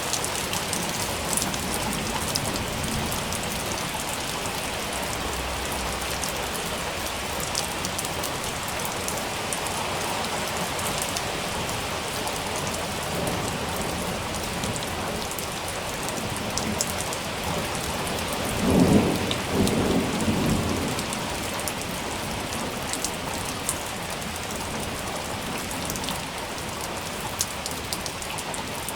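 Steady rain falling and pattering on surfaces, with one rumble of thunder swelling up about two-thirds of the way through and fading after a couple of seconds.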